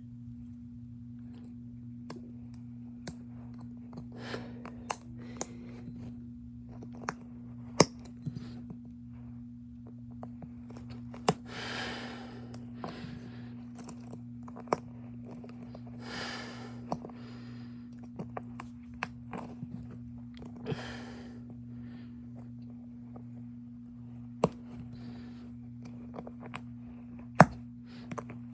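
Scattered sharp clicks and small snaps of tools prying and picking at a phone's front camera module as it is taken apart, with three short hissy sounds along the way. A steady low hum runs underneath.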